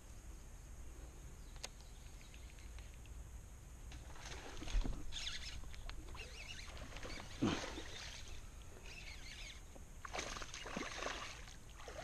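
Water splashing in irregular bursts beside a kayak, starting about four seconds in, as a hooked largemouth bass thrashes at the surface.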